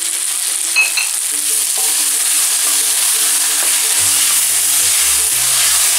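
Diced vegetables sizzling steadily in a hot stainless-steel wok and being stirred with a wooden spoon toward the end, over soft background music that gains a bass line about two-thirds of the way in.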